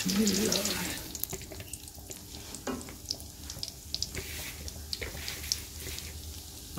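Hot desi ghee sizzling faintly with scattered small crackles under a mound of wheat flour just poured into it, as the flour starts to fry.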